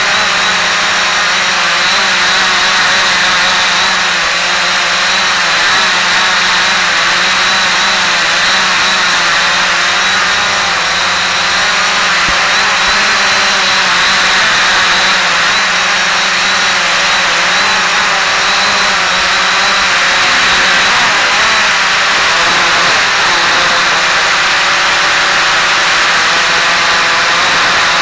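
Quanum Follow Me quadcopter's electric motors and propellers whining steadily, heard from the camera on board, the pitch wavering up and down as the motor speeds change.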